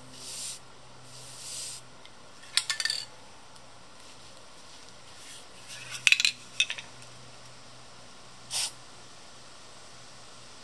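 Aerosol spray paint can hissing in two short bursts, then sharp clinks and clatters of metal spray cans being handled, twice, and one more short burst of spray near the end.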